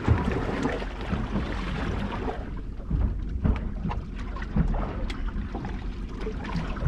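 Wind buffeting the microphone over the sound of the sea and a boat rocking, with a low rumble and a few light knocks about halfway through.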